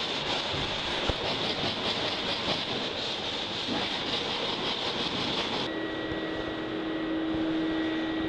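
Sandpaper on a sanding block rubbed back and forth over the plywood hull of a stitch-and-glue kayak, a steady rough scratching. About six seconds in it stops and gives way to a steady hum with a thin higher whine.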